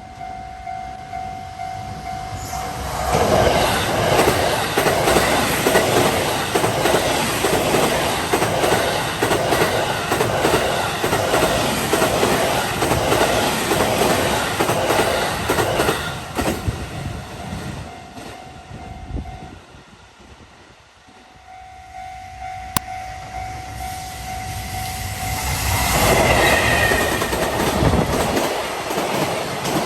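Freight trains passing at speed over a level crossing, their wheels clattering rhythmically over the rail joints for about fifteen seconds. In the lull the crossing's warning bell rings with a steady tone, and a second train comes through near the end.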